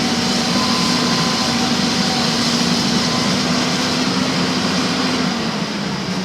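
Backhoe loader's diesel engine running steadily under work, its note dropping and easing off about five seconds in.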